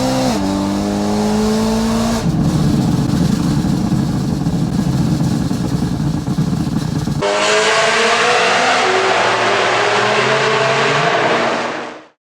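BMW M3 V8 with a catless exhaust and Akrapovic rear muffler, accelerating with its pitch climbing. About two seconds in it turns into a rough, dense crackle that lasts about five seconds. Then comes another hard pull rising in pitch, which fades out near the end.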